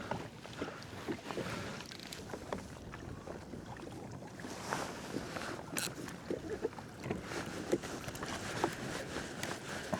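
Water sloshing and lapping against a fishing kayak's hull, with scattered small knocks and clicks.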